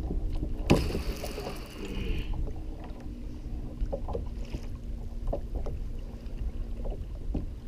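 Wind rumbling on the microphone and water moving against a plastic fishing kayak's hull, with scattered small knocks on the hull. A sharp knock comes about a second in, followed by a brief hiss.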